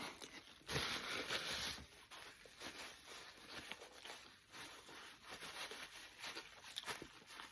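Close-up eating noises as a burger is eaten: a loud rustle about a second in, then quieter chewing and small mouth clicks.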